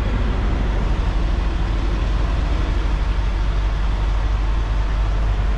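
A semi-truck's diesel engine running steadily, heard from inside the cab as a deep, even hum.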